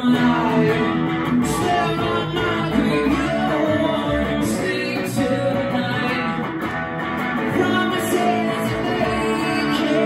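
A song played live by a small band: a male lead vocal over electric guitar and plucked upright double bass.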